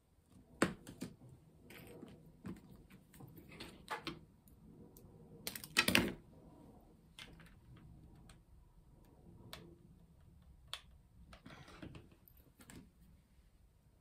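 Scattered small clicks, taps and rustles of hands handling a decorated wax pillar candle and its glued-on pine cone and greenery on a cutting mat, with the loudest cluster of knocks about six seconds in.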